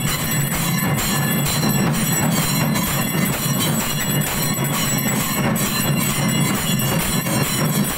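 Bells clanging without a break during an aarti: a dense metallic din with high ringing tones held over it.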